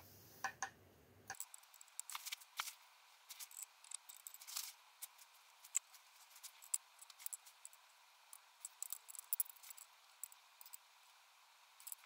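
Faint, irregular tiny ticks and crackles of gas bubbles fizzing in a jar of nickel-plating electrolyte while current flows to the part being plated.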